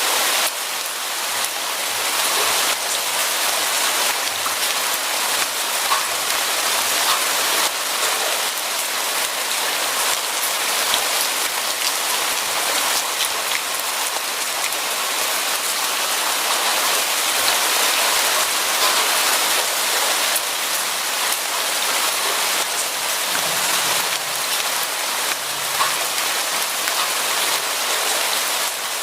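Steady rain falling on a surface, a dense even hiss with many small drop ticks.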